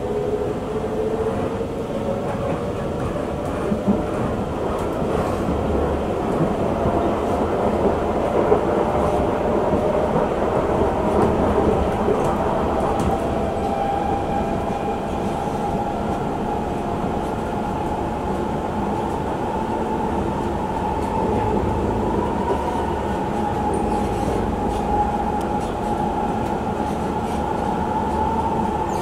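Singapore MRT train heard from inside the carriage: the traction motors' whine rises in pitch over the first dozen seconds or so as the train picks up speed, then holds steady at cruising speed, over a steady low rumble of wheels on rail.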